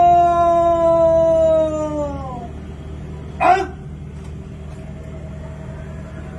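A long held note that slowly sags in pitch, then drops away and fades about two seconds in. About a second later comes one short, loud, sharp sound.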